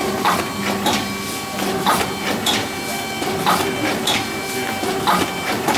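Vertical bagging machine running at about 40 bags a minute: a repeating pair of sharp mechanical strokes about every one and a half seconds, over a steady hum.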